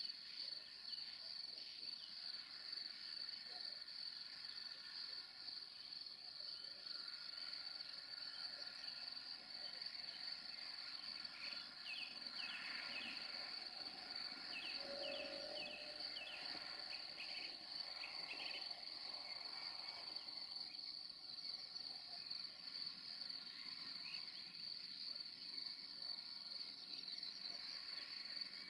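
A steady, high-pitched chorus of crickets, with a few brief chirps around the middle.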